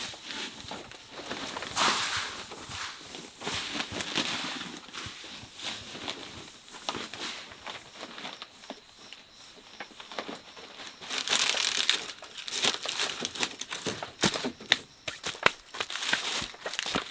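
Hands sweeping and spreading a layer of dry rice husk bedding across a floor: a continuous dry, scratchy rustling, louder for a couple of seconds past the middle.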